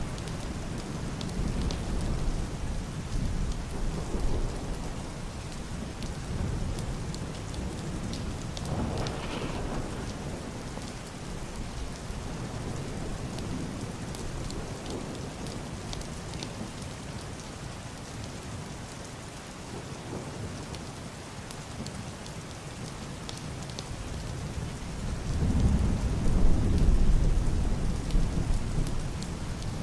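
Heavy rain pattering steadily on a roof and window, with scattered sharp drop ticks, under low muffled thunder rumbles; a louder rolling rumble builds near the end and lasts a few seconds.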